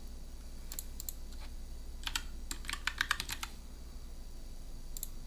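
Typing on a computer keyboard: a few scattered keystrokes about a second in, then a quick run of about ten keys around the middle, and a single click near the end.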